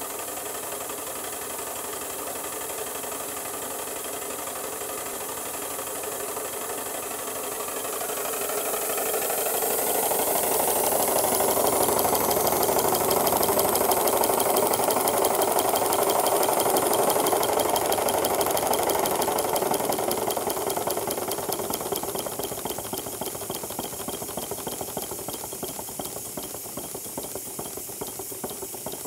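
Live-steam model of a DB class 01 steam locomotive running under steam, wheels spinning: rapid steam exhaust beats and hiss over a clatter of the running gear. It grows louder about a third of the way in and eases off again in the last third.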